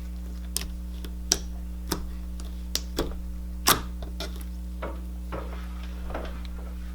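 Clear glitter slime being squeezed and stretched by hand, giving off about ten sharp little clicks and pops at irregular intervals over a steady low electrical hum.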